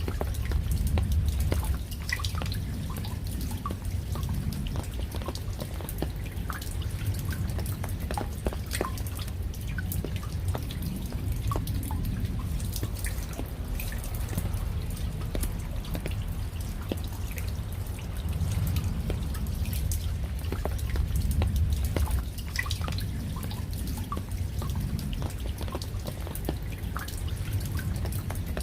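Raindrops dripping: many separate drops tick at irregular intervals over a steady low rumble.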